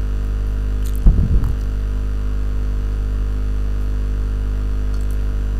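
Steady electrical mains hum, a low buzz with evenly spaced overtones, picked up by the recording microphone. A short low sound cuts in about a second in.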